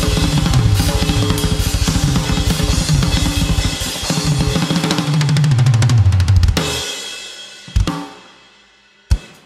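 Drum kit played fast, with rapid low kick strokes and busy fills, stopping abruptly about six and a half seconds in. Cymbals ring out and fade, then two single hits come near the end.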